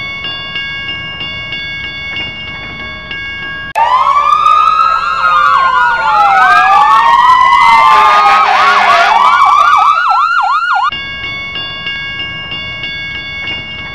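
Railway level-crossing warning bell ringing steadily. About four seconds in, several police sirens wail over it and speed up into a fast yelp. They cut off about eleven seconds in, leaving the crossing bell alone.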